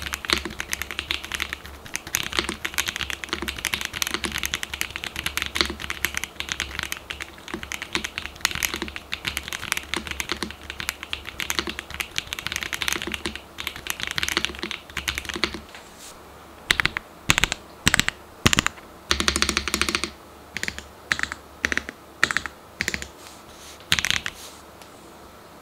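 Typing on a gasket-mounted Cheap60ex 60% mechanical keyboard: fast, continuous keystrokes, then from about two-thirds of the way through, slower separate keystrokes and short runs, a few of them louder.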